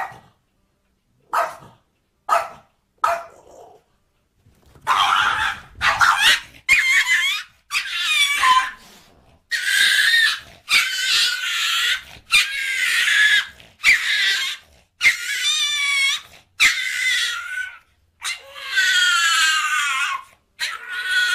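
Dogs barking: a few short, sharp barks at first, then from about five seconds in a long run of loud, high-pitched, wavering cries, one after another with short gaps.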